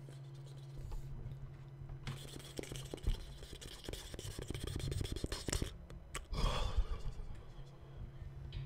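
Faint rustling and scraping with many quick clicks, as of hands or clothing moving close to the microphone, over a steady low electrical hum; a short breathy mouth sound comes a little after the middle.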